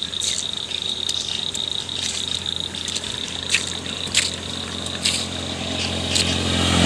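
Insects chirring in a steady high trill, with a motorcycle engine approaching and growing louder over the last couple of seconds.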